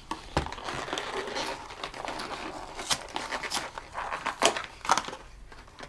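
Blind-box toy packaging being opened: crinkling and tearing, with many sharp little crackles.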